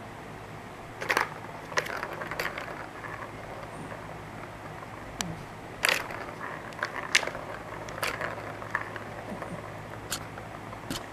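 A cat pawing at a plastic ball-track tower toy: irregular sharp plastic clicks and knocks as its paw strikes the balls and track, with the balls rattling and rolling around the tracks in between.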